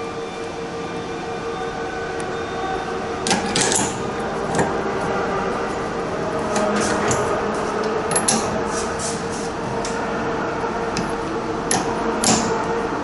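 Short metallic clinks and knocks as a Bosch common-rail diesel injector is handled in a steel bench clamping fixture and a wrench is fitted to its nozzle nut, over a steady workshop hum with a constant tone.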